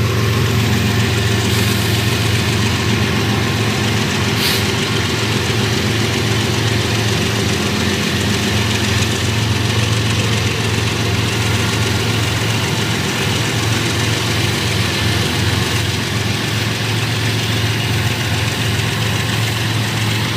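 Canadian National diesel freight locomotive running with a steady, low engine drone as the train rolls slowly by.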